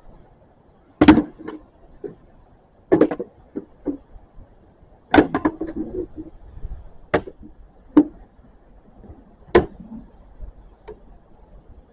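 Padded practice swords striking round shields in a sparring bout: a dozen or so sharp knocks at irregular intervals, some coming in quick runs of two or three.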